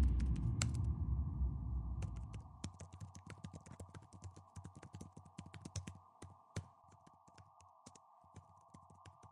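Rapid, irregular computer-keyboard typing clicks that grow sparser toward the end. A deep low rumble fades away under them over the first few seconds.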